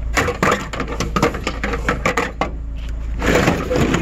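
Hard objects clattering and knocking in a quick irregular run of sharp knocks, with a denser rattling patch about three and a half seconds in, over a steady low rumble.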